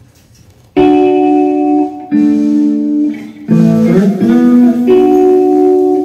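Electric guitar opening a song alone. It comes in sharply about a second in with ringing held chords that change every second or so, and slides up into a new chord around the middle.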